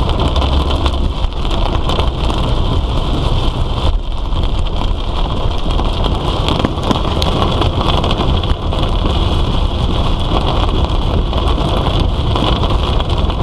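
Heavy rain pattering on a moving car, with the steady low rumble of the vehicle and its tyres on the wet road.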